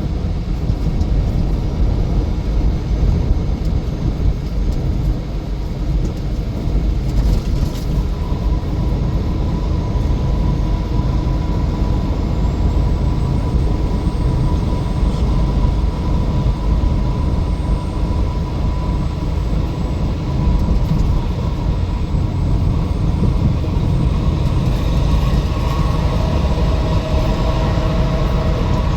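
Steady low rumble of road and tyre noise inside a vehicle cab driving at highway speed, with a faint steady whine coming in about eight seconds in.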